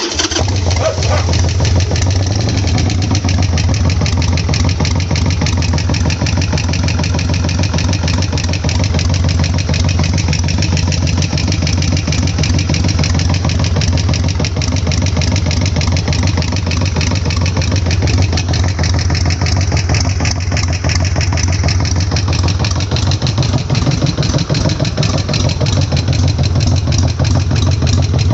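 Harley-Davidson Sportster V-twin engine idling steadily with an even, rapid pulse.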